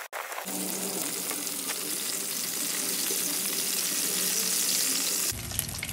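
Cornmeal-and-cornstarch-coated fish fillets deep-frying in hot canola oil in a cast iron pan: a steady, dense sizzle, with a brief gap just after the start.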